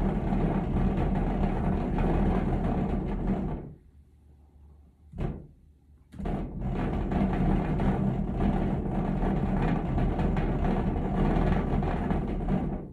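Homemade rumbler shaker running, rattling loose objects over a steady low hum. It stops about three and a half seconds in, gives a brief burst, then starts again about six seconds in and runs until just before the end.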